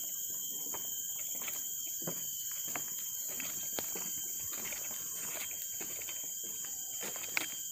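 Steady high-pitched chorus of forest insects, with footsteps knocking on the wooden planks of a suspension bridge about every half second to second, and one sharper knock near the end.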